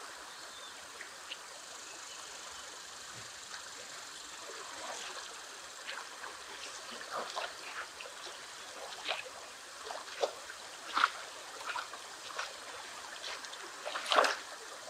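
Fast river current running steadily, with short splashes from a hooked rainbow trout thrashing at the surface, more frequent in the second half. The loudest splash comes near the end as the fish is brought to a landing net.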